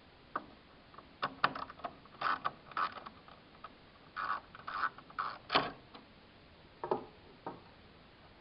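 Screws being worked out of the plotter's service station with a screwdriver, with metal and plastic parts clicking and rattling: irregular clicks and short scrapes, busiest through the middle, with two more clicks near the end.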